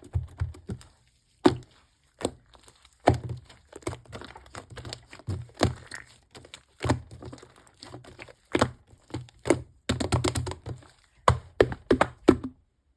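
Fluffy shaving-foam slime being squeezed and pressed by hand, making irregular sharp pops and clicks as air pockets burst, with a quick run of pops near the end.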